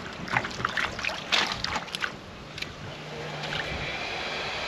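A quick run of light clicks and knocks in the first two seconds, then a steady rushing of wind on the microphone that grows slightly toward the end.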